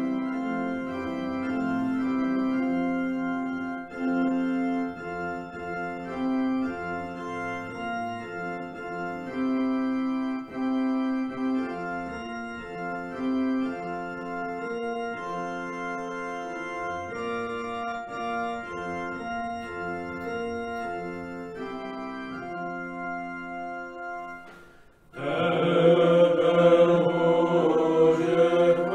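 Church organ playing sustained chords as the introduction to a hymn; about 25 seconds in it breaks off briefly and the singing of the hymn begins with the organ accompanying.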